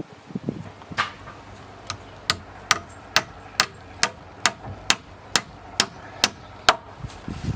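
A hammer striking steadily, about a dozen sharp blows at roughly two a second, stopping shortly before the end.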